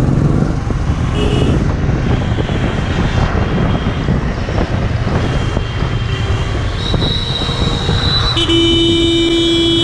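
Road traffic heard from a moving motorcycle: a steady low rumble of engine and road noise, with vehicle horns tooting in the second half. Near the end comes one loud horn blast lasting under two seconds, as an oncoming truck passes.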